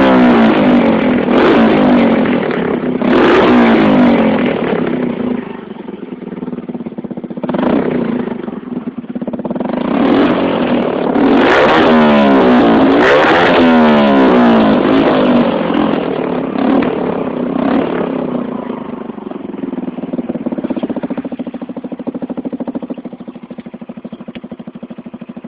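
Yamaha XT125X's single-cylinder four-stroke engine, breathing through an aftermarket pit-bike big-bore exhaust, being revved. It gives a few short throttle blips, then a longer run of revs about halfway through, then settles back to idle over the last several seconds.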